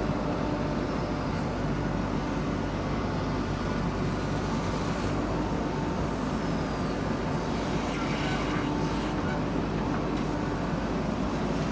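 JCB 3DX backhoe loader's diesel engine running steadily as the machine works.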